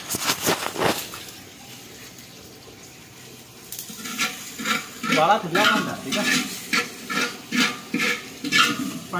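Metal ladle stirring and scraping inside an aluminium cooking pot, a few knocks in the first second, then steady strokes about two a second from about four seconds in.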